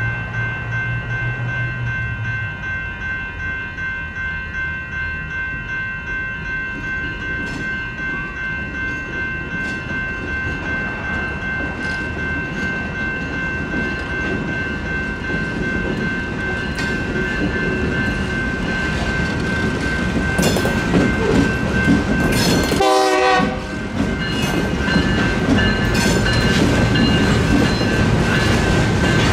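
Railroad crossing bell, a GS Type 2 electronic bell, ringing steadily as a Union Pacific local freight led by two GP22T4 locomotives approaches and crosses. The rumble of the locomotives and the wheel clatter grow louder through the second half, with a short horn blast about 23 seconds in, then hopper cars clattering over the crossing near the end.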